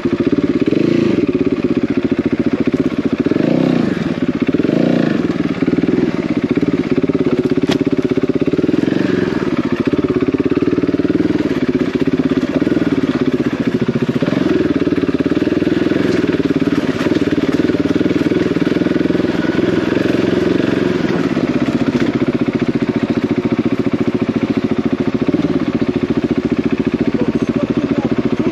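Single-cylinder dual-sport motorcycle engine running under way on a rough off-road lane. Its revs rise and fall several times in the first few seconds, then hold fairly steady.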